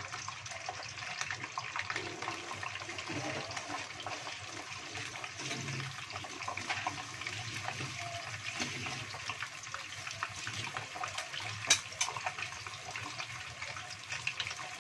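Whole tilapia deep-frying in hot oil in a wok, a steady sizzle full of small crackles and spits. One sharp pop of spattering oil comes about twelve seconds in.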